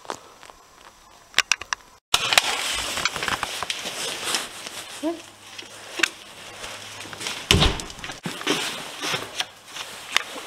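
Close rustling and crackling of clothing against the camera's microphone, with scattered knocks and one heavy thump about seven and a half seconds in. In the first two seconds, a few sharp crunching steps on snow.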